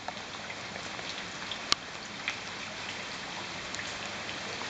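Heavy rain falling steadily on wet brick paving, an even hiss with one sharp tick a little under two seconds in.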